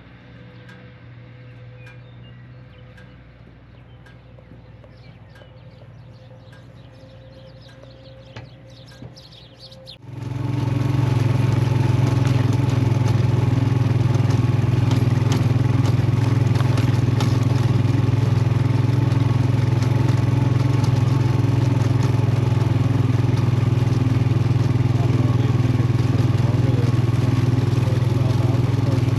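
A vehicle's engine running steadily: a quiet low hum for about the first ten seconds, then a much louder, even engine sound that begins abruptly and holds steady.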